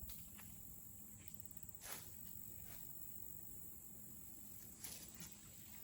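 Quiet outdoor background with a steady faint high hiss, broken by two soft brief rustles about two and five seconds in.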